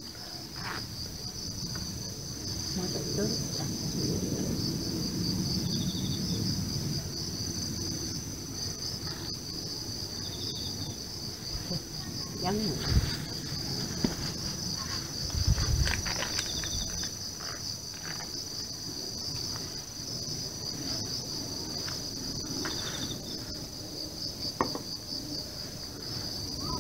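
A steady, high-pitched insect chorus buzzing in the trees, with a short chirp repeating every five or six seconds. A couple of low knocks come about halfway through.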